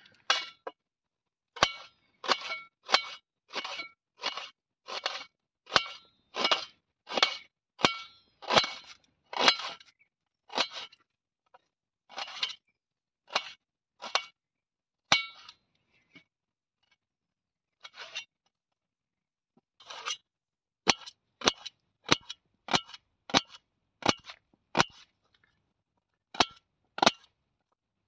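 Kitchen knife slicing onions against a stainless steel plate: a run of sharp taps, each with a short metallic ring from the plate, at roughly one to two a second, with a pause of a few seconds partway through.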